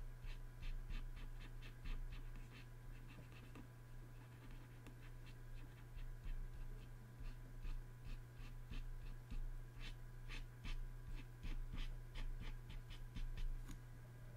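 Stylus scratching across a graphics tablet in quick short strokes, about three a second, coming in runs as brush strokes are painted. A steady low electrical hum runs underneath.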